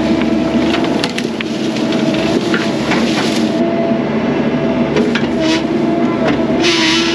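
Mini excavator's diesel engine running steadily under load, with repeated sharp cracks and crunches of wood breaking and splintering.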